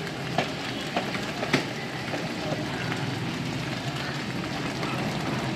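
Steady street-side background noise with traffic, broken by a few sharp clicks in the first two seconds.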